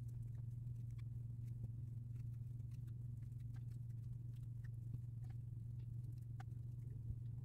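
Faint, irregular light clicks and rustles from a crochet hook and yarn as single crochet stitches are worked, over a steady low hum.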